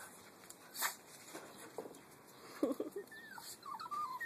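Small dog whining in high, wavering whimpers during the last second or so, after a short low yelp about two and a half seconds in.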